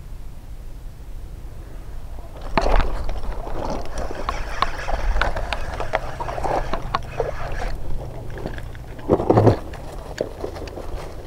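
Water splashing and sloshing over a low steady hum, starting about two and a half seconds in, with many sharp clicks and knocks and a louder burst near the end.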